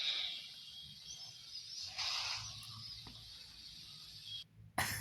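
Soft rubbing and brushing noises from a barber's head and neck massage: two swells about two seconds apart, with faint high chirps in the background and a small click about three seconds in.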